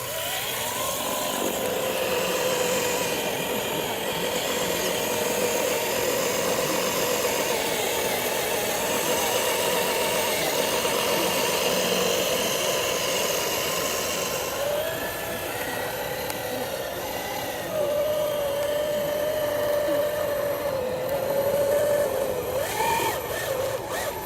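Small electric motor and gearbox of a remote-control truck whining steadily, the pitch shifting up and down as the throttle changes.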